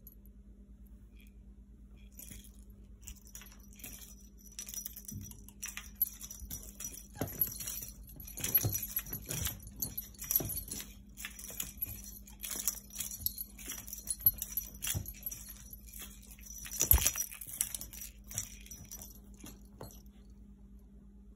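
A cat playing with a pompom wand toy: irregular light metallic jingling mixed with soft knocks and rustles of paws and toy against a leather couch. It starts about two seconds in and dies down shortly before the end, with one louder knock near the end.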